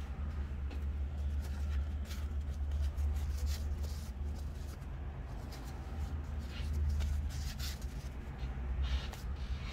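Light clicks and taps of tweezers and small plastic drone parts being handled while wires are fitted into a DJI Mini 2's arm, over a steady low hum.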